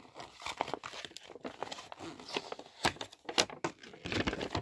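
A folded glossy paper collector's checklist being unfolded by hand, crinkling and rustling in irregular crackles, a few sharper ones near the end.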